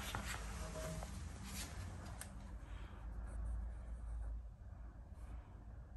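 Faint handling sounds: light clicks and scraping as metal fixtures of a laser frame-measuring tool are fitted and adjusted by hand. A few clicks come in the first couple of seconds, over a low background rumble.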